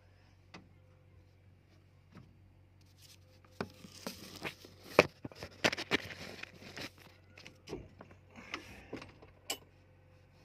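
Clattering handling noises: a run of sharp clicks and knocks with scraping, busiest a few seconds in and again near the end.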